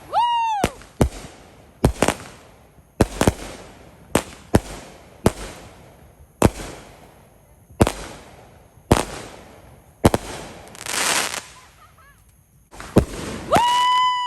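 Fireworks going off: a string of sharp bangs, about one a second, each with an echoing tail. A high whistle dies away right at the start, a hissing crackle comes about eleven seconds in, and another steady high whistle sounds near the end.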